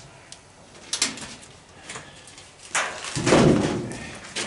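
Sheet-metal washing machine being worked on: a couple of sharp knocks, then a loud clattering scrape about three seconds in.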